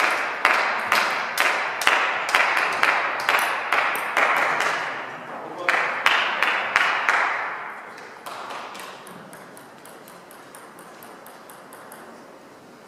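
Table tennis ball clicks, about two a second, each with a ringing echo from a large hall, dying away about seven seconds in and leaving quiet hall ambience.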